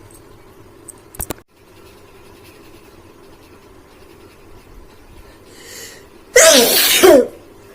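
A woman sneezes once, loudly, about six seconds in, after a short breath in. It is one of a run of sneezes she is counting. A few sharp clicks come about a second in.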